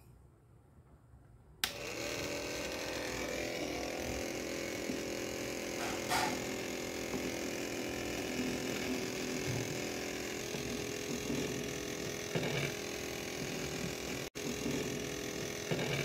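Small electric motor of a homemade plastic-bottle vacuum cleaner switched on about a second and a half in, then running steadily with a hum as it sucks up foam bits. A few light clicks come through over it.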